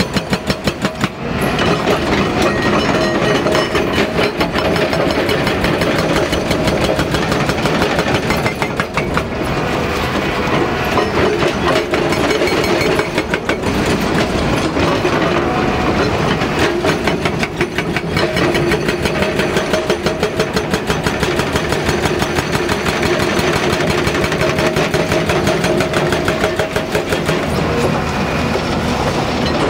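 Hydraulic rock breaker (Hyundai HDB230) on a crawler excavator hammering, a rapid steady train of impacts with a few brief pauses.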